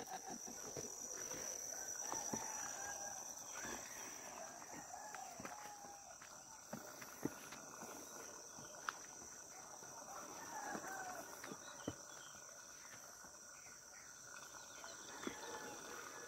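Quiet rural outdoor ambience: a steady high-pitched insect drone, faint distant wavering calls, and a few sharp taps of footsteps on stone steps.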